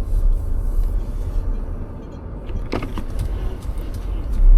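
Car running, heard from inside the cabin: a steady low rumble of engine and road noise, with a short click about three seconds in.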